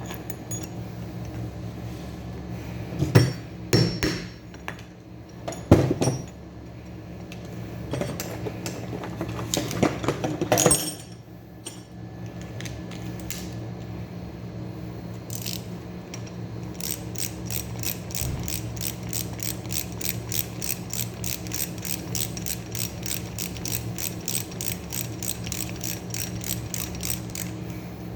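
Metal parts knocking and clanking as they are handled, then a ratchet clicking steadily at about four clicks a second for some ten seconds.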